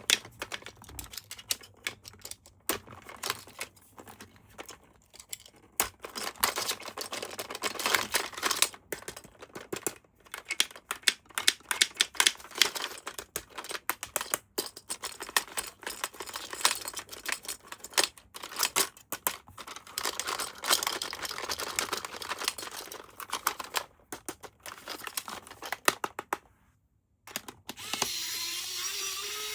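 Plastic toy parts and packaging being handled: dense irregular clicking and rustling. Near the end a small electric toy motor switches on and whirs steadily, rising slightly in pitch.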